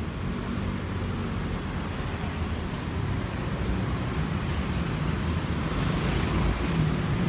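Steady low rumble of road-vehicle traffic, engine and tyre noise, growing slowly louder.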